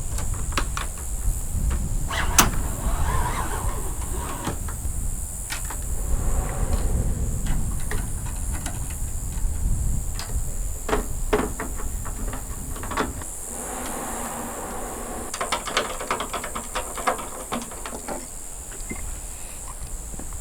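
Gusty wind buffeting the microphone for the first dozen seconds, with scattered clicks and knocks throughout and a dense run of them later on.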